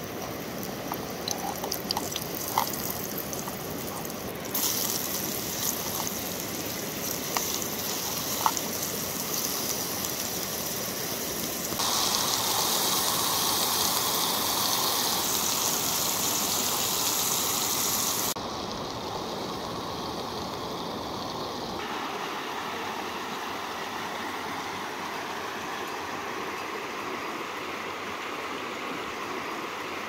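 Sliced boletus mushrooms sizzling in oil in a small camping pot, with a few light clicks of a spatula in the first seconds, against the steady rush of a mountain stream. The noise changes abruptly in level and brightness several times, loudest for a stretch in the middle.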